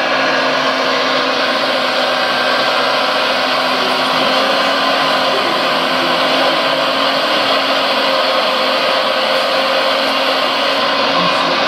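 Premacon 1:14.5 RC Liebherr R956 excavator running steadily as it digs: a continuous whirring hum from the model's drive and its sound module's imitation of the real machine's diesel engine.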